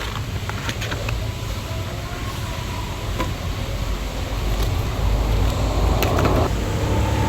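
Steady low rumble with scattered small clicks and light rustling, like packaging and cards being handled; a louder rustle comes about five seconds in and lasts over a second.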